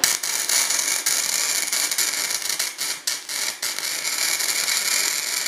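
Flux-core wire-feed welding arc from a Forney Easy Weld 140 FC-i, striking at the start and then crackling steadily as a bead is run along steel, faltering briefly a couple of times about halfway through.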